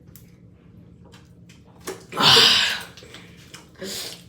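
A boy's loud, breathy gasp about two seconds in, just after gulping down Sprite, followed by a shorter breath near the end.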